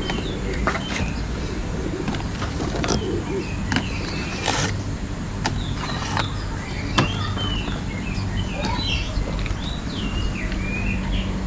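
Small birds chirping repeatedly, short quick calls scattered through, over a steady low hum and a few sharp clicks.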